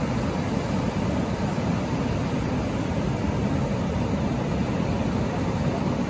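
Ocean surf breaking offshore and shallow water washing over the beach: a steady, low rush.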